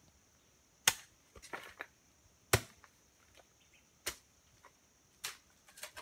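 Several sharp, brief clicks or snaps, the loudest about a second in and again at two and a half seconds, with smaller ones around four, five and six seconds, over a steady high-pitched insect drone.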